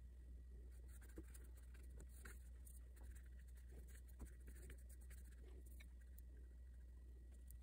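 Faint strokes of a flat brush laying wet gouache onto watercolour paper, with a few soft ticks, over a low steady hum.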